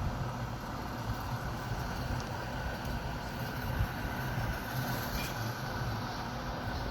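Electric fan running, a steady whirring hum.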